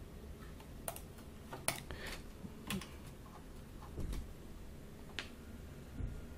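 Computer keyboard and mouse clicks: several separate, irregular taps spread over a few seconds, as keys and buttons are pressed to duplicate and move a layer.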